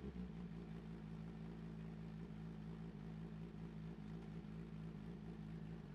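Suzuki GSX-R1000 L9R inline-four engine idling steadily through a Yoshimura titanium exhaust, with an even, low exhaust note.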